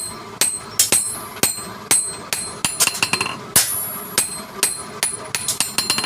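Hammer striking metal in a steady, uneven run of blows, roughly two a second, each blow leaving a bright metallic ring.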